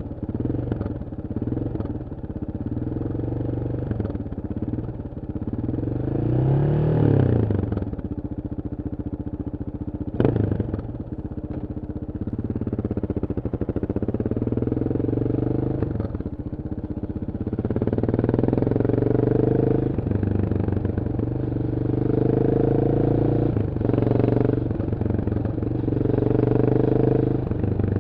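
1994 Yamaha XT 600's single-cylinder four-stroke engine through a GPR Trevale aftermarket exhaust. The pitch rises and falls in the first several seconds, with one sharp knock about ten seconds in. In the second half the note climbs and drops about four times, like pulling through the gears.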